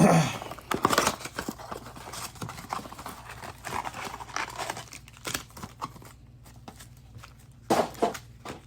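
Football trading cards and pack wrappers being handled: a run of quick taps, slides and rustles of card stock and foil, with louder knocks at the start, about a second in, and near the end.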